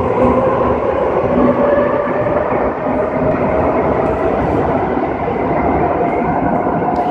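Madrid Metro 5000-series train pulling out of the station: a steady rumble of wheels on rail with a motor whine that slowly rises in pitch as it gathers speed, echoing in the underground station.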